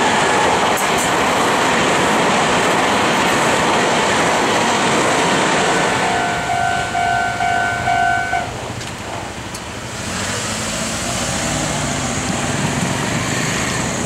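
A Meitetsu 2200-series limited express coupled to a 3150-series set runs through a level crossing, its wheels clattering over the rail joints for about six seconds. As the train noise thins, the crossing's warning bell is heard dinging steadily, and it stops a little past eight seconds in. Passing road traffic follows.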